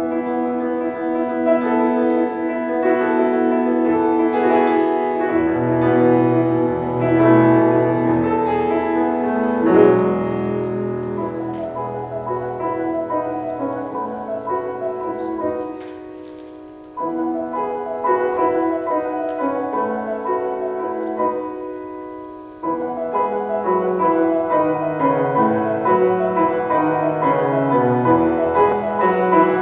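Solo piano playing a slow, flowing passage of melody over sustained chords. Twice the sound dies away, about halfway through and again about three quarters through, before the next phrase comes in.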